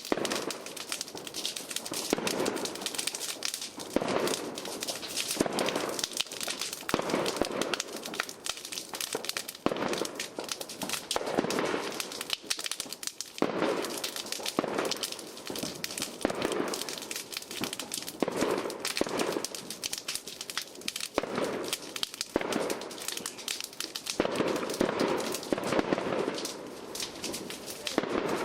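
Fireworks going off: dense crackling and popping throughout, with heavier bangs every second or two.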